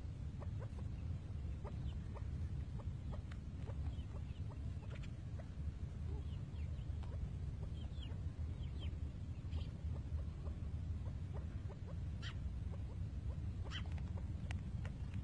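Chukar partridges and quail pecking at grain on sandy ground: many small quick ticks, with a few brief soft chirps and clucks, the clearest two near the end, over a steady low rumble.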